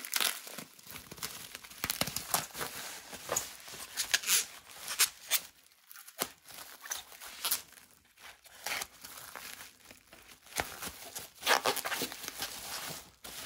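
Plastic bubble wrap crinkling and rustling as it is handled and cut into with scissors, in irregular crackles with a short lull about six seconds in.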